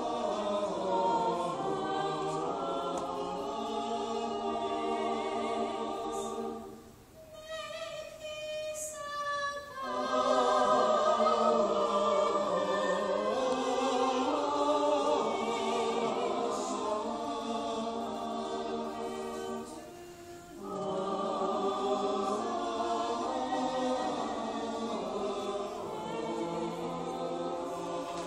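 Small mixed choir of men's and women's voices singing sustained chords in harmony, with a brief lull about a quarter of the way in where only a thin line or two of voices carries on, and another short dip about two thirds of the way through.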